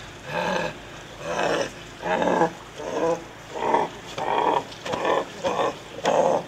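Beast-like growling: a run of about nine short, rough growls, one after another.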